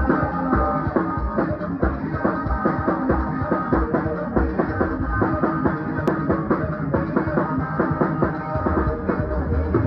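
Band music with drum kit and guitar playing at a steady beat.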